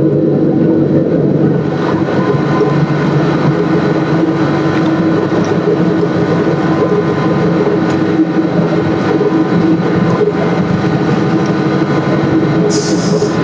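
Machinery running steadily, a loud even mechanical drone with a constant pitch, and a short burst of high hiss near the end.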